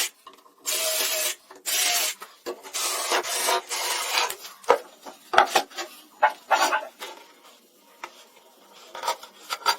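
Hand-tool strokes rasping across wood, several long scrapes in a row, then a few sharp knocks and a short lull before the scraping starts again near the end.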